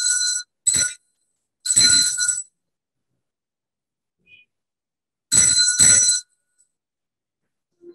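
Altar bells (Sanctus bells) shaken in four short, bright rings, each cut off sharply, with a pause of about three seconds before the last: the bell rung at the elevation of the chalice after the consecration.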